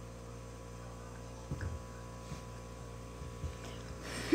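Steady low electrical hum with faint steady tones above it, with a soft knock about a second and a half in and a sharper knock at the very end.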